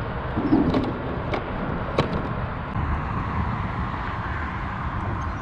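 Steady wind noise and choppy water around a kayak, with a few sharp light knocks in the first two seconds.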